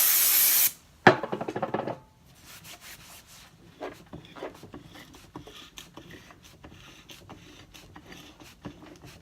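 Freshly rebuilt and regreased Smittybilt XRC8 electric winch run in two short bursts of about a second each, with a rough, rasping gear noise that is described as sounding like dog shit. Faint clicks and rubbing from handling follow.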